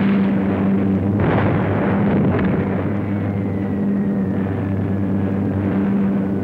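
Bomber's piston engines droning steadily, with two sudden blasts about one and two and a half seconds in, followed by a faint high whistle that falls slowly in pitch.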